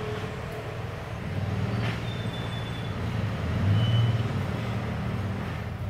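A steady low engine-like rumble, growing louder about four seconds in, with two brief faint high tones over it.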